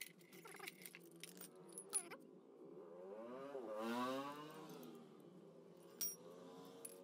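Steel hand tools clinking as they are handled and set down, with a sharp clink about two seconds in and another near the end as a wrench is laid on the floor. Around the middle, a passing vehicle's engine rises and falls in the background, the loudest sound.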